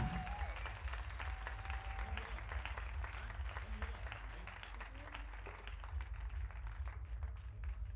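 Audience applauding after a song, with many claps blending into a dense patter that thins out near the end, over a steady low rumble.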